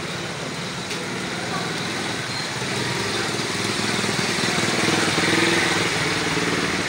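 A small engine running, growing louder to a peak about five seconds in and then easing off a little.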